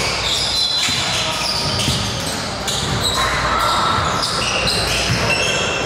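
Basketball game sound on a hardwood gym court: the ball being dribbled and played, with many short, high sneaker squeaks.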